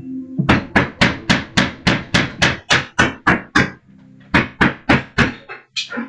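Loud, rapid banging blows on a hard surface: a run of about a dozen strikes at roughly three a second, a short break, then four more and one last blow.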